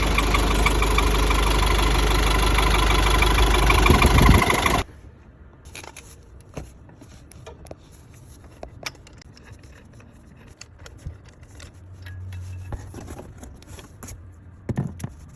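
Nissan Navara D23 engine running loudly, the engine noise that points to a failing crank pulley / harmonic balancer. It cuts off suddenly about five seconds in, leaving faint clicks and scrapes of tools being handled.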